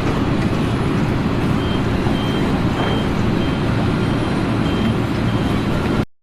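A heavy vehicle's engine running with a steady rumble, and a backup alarm beeping about every two-thirds of a second over it. The sound cuts off suddenly near the end.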